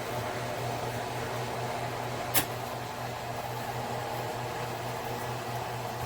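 Steady hum of a ceramic hob's cooling fan under the burner running, with one sharp click about two and a half seconds in.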